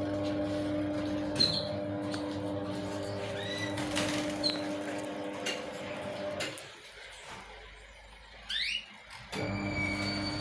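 Pet lovebirds giving a few short, high chirps and a pair of quick rising squeaks near the end, with scattered sharp clicks. A steady hum runs underneath and drops out for a few seconds past the middle.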